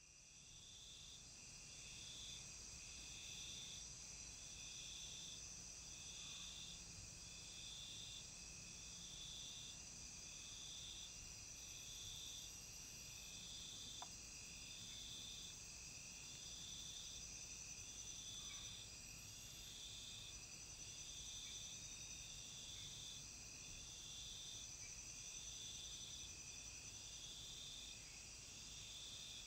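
Faint chorus of Amazon rainforest insects: a steady high-pitched shrill, with one insect's pulsing call repeating a little under once a second.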